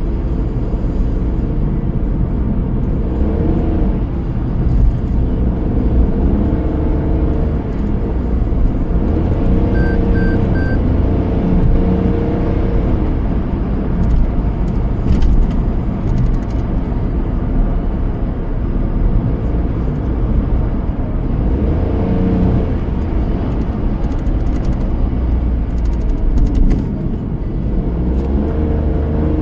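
Car under way, with steady engine and tyre rumble and an engine note that rises and falls with the road. About ten seconds in come three short high beeps.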